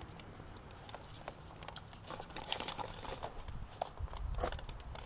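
Scattered small clicks and rustles of a steel tape measure being handled and stretched across a carpeted boat deck, with a brief low rumble about four seconds in.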